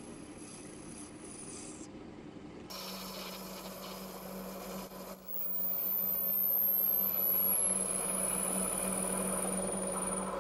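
Myford ML7 metal lathe running with a steady hum while a brass rod is parted off, the cutting tool scraping and rubbing against the metal. The sound changes abruptly about three seconds in and grows louder about halfway through.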